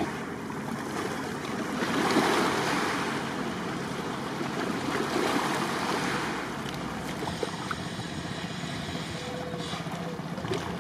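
Wind noise on the microphone over small waves lapping, swelling in gusts about two seconds in and again around five seconds.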